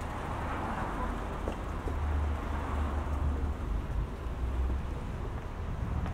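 Outdoor street ambience: wind buffeting the microphone in an uneven low rumble, over a hiss of road traffic that swells in the first couple of seconds as a vehicle passes.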